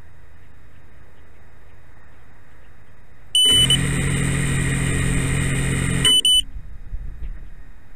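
Small FPV drone's motors spinning at a steady idle for under three seconds without lifting off, starting and stopping abruptly. A short high beep sounds as they start and another as they stop.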